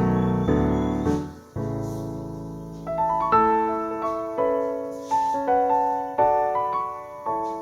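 Background piano music: a few low chords, then a slower melody of single notes, each struck and dying away.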